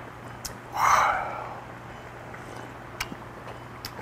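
A man's loud, breathy exhale about a second in, the sharp 'kha' of someone who has just downed a shot of soju. A few light clicks of a spoon and dishes follow later.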